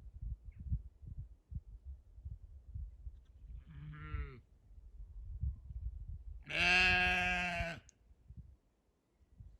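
A sheep bleating twice: a short bleat about four seconds in, then a longer, louder bleat a couple of seconds later. Low thumps and rumble run underneath.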